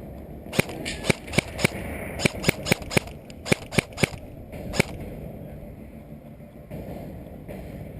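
Airsoft guns firing single shots: about a dozen sharp snaps in irregular quick groups over about four seconds, then they stop. A steady low rumble of wind or handling noise lies under them.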